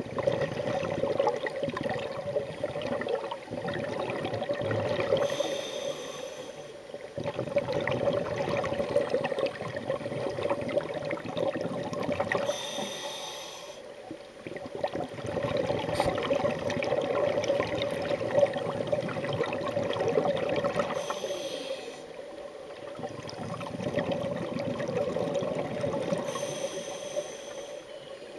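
Scuba diver breathing through a regulator underwater: long bubbling exhalations of about four to seven seconds, each followed by a short, quieter inhalation with a thin high whistle, four breaths in all.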